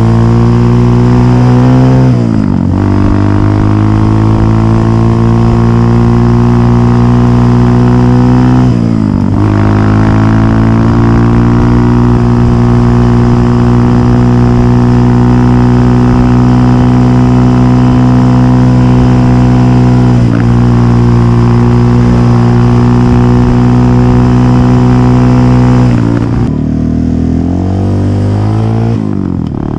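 Dirt bike engine pulling hard at high revs under the rider, its note climbing slowly in each gear and dipping sharply a few times as gears change. The note falls away in the last few seconds as the throttle is eased, with wind rush over it.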